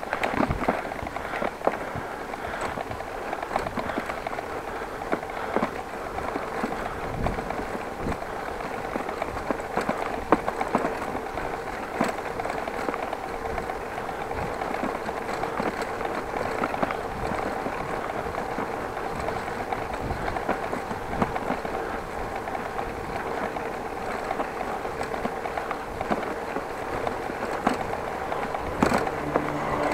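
Electric bicycle riding over brick paving: a steady tyre rumble with many small rattles and clicks from the bike and a tool hanging on the handlebars, over a faint steady whine.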